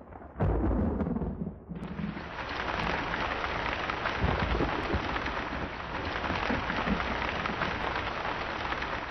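Rain falling steadily, filling out to a full, even hiss about two seconds in, with a low rumble at the start.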